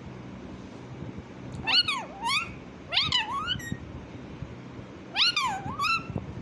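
Pet parrot mimicking a cat's meow: three high, meow-like calls, each in two parts that swoop down and back up in pitch.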